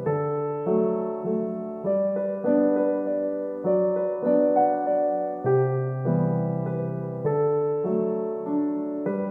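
Background music: a gentle piano melody with notes struck at an even, unhurried pace.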